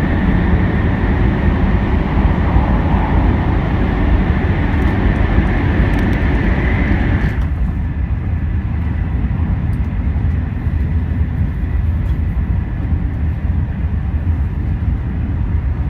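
Interior running noise of a Joetsu Shinkansen train at speed: a steady low rumble with a hiss over it. About seven seconds in, the hiss drops away suddenly and the rumble carries on.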